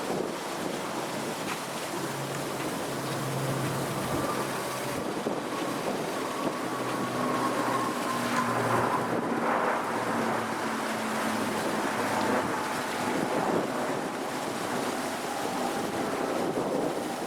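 Steady rushing noise of wind on the microphone, with a faint hum underneath.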